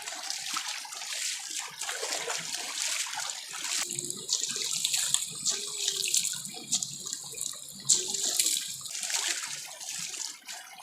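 Water splashing and running as a goat is washed in a river, with a steady hiss of moving water.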